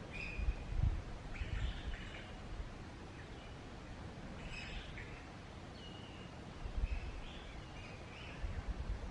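Scattered short, high bird chirps over steady forest background noise, with a few brief low rumbles in between.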